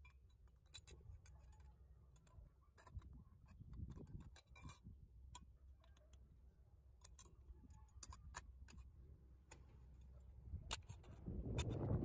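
Faint, irregular metallic clicks and ticks as the steel drive shaft of an antique brass Turkish coffee grinder is slid into and fitted against the brass body, with louder handling rustle near the end.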